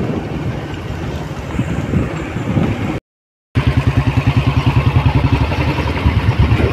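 Motor vehicle engine running on the move along a road. It breaks off in a short cut of silence about three seconds in, then comes back louder as an even, fast low pulsing.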